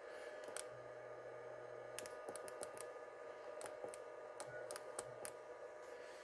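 Repeated clicks of the mode button on an everActive CBC-10 car battery charger, pressed about a dozen times at uneven intervals to step through its charge modes to winter mode. The clicks are faint and sit over a steady electrical hum.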